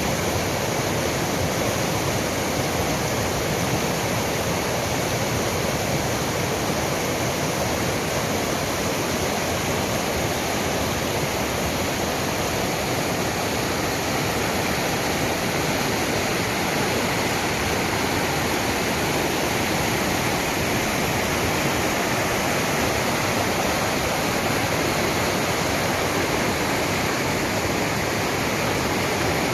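Rushing water of a mountain stream or waterfall: a loud, steady rush with no breaks.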